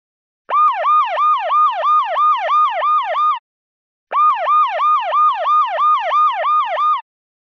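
Electronic siren alarm from a fire-detection phone app, sounded because it has detected fire: a fast repeating yelp that sweeps up sharply and falls back about four times a second, in two bursts of about three seconds each with a short gap between them.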